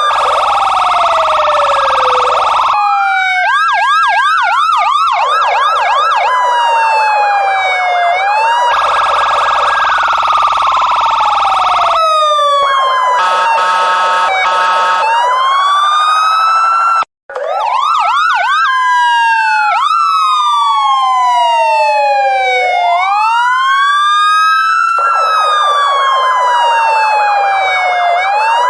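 Electronic police siren running through its tones: slow rising and falling wails, a fast yelp about four seconds in, steady buzzing blasts, and a stretch of rapid pulsing around thirteen seconds in. It cuts out for an instant about seventeen seconds in, then sweeps start again, at times overlapping.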